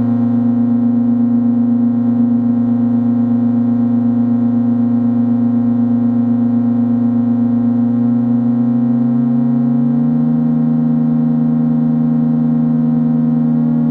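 MFOS Weird Sound Generator analog drone synth holding a steady two-tone drone. About eight seconds in, the lower tone glides upward over two seconds and settles at a higher pitch while the upper tone holds.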